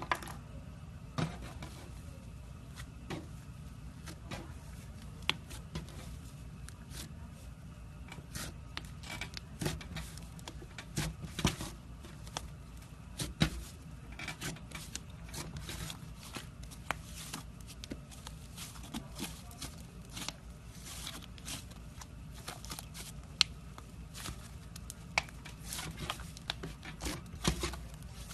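Slime being squished and poked by hand, giving many irregular crackling clicks and small pops, denser in bunches, over a low steady hum.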